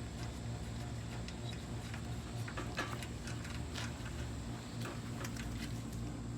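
Faint, scattered metallic clicks and ticks of wrenches and small bolts and washers being handled, more frequent in the second half, over a steady low hum.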